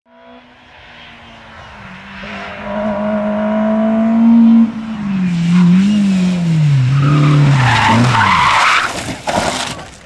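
Rally-prepared VW Golf Mk1's four-cylinder engine held at high revs, then lifting off about halfway, its pitch wavering and falling. Tyres skid and scrub loudly over the last few seconds as the car slides off the road, and the noise cuts off suddenly near the end.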